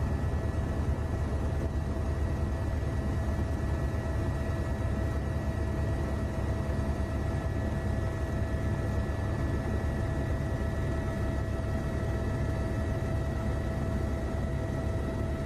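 Steady in-flight noise of an aircraft heard from on board: a low engine rumble with constant high whining tones over it.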